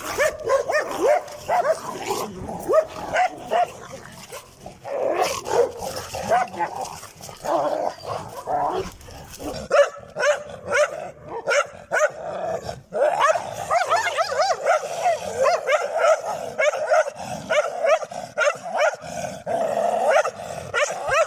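Several street dogs in a scuffle, barking, yelping and growling at one another in rapid overlapping calls. The calls thin out briefly about four seconds in and come thickest over the last third.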